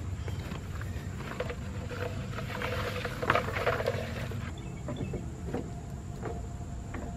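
Rustling and scattered clicks of multi-strand sprinkler valve wire being pulled off its plastic spool and laid into a dirt trench, with steps in soft soil. A steady low rumble runs underneath.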